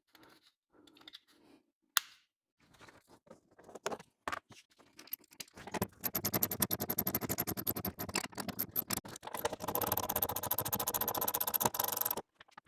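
Impact wrench hammering in one run of about six seconds, starting about six seconds in and stopping suddenly, as it works a seat-mounting bolt. Before that, scattered small clicks of parts and tools being handled, with one sharp click about two seconds in.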